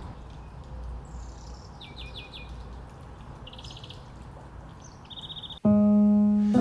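Songbirds calling in short runs of quick high chirps, a few times, over a low steady rumble. Piano music cuts in abruptly and loudly near the end.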